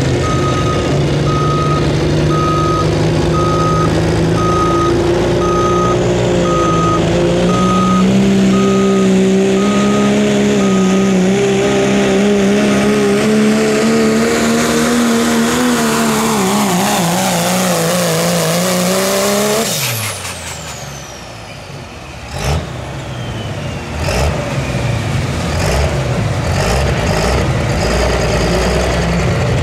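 Turbocharged 5.9 Cummins diesel in a second-generation Dodge Ram at full throttle pulling a weight-transfer sled. The engine pitch climbs, then sags and wavers as the sled bogs it down, and a repeated beep sounds through the first ten seconds or so. About twenty seconds in, the throttle is dropped suddenly and the turbo whistle winds down, followed by a couple of sharp knocks.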